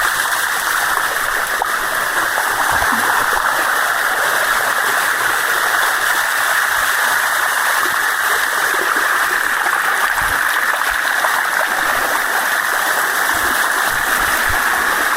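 Sticky Waterfall (Bua Tong) cascading, its water rushing steadily over the rocks.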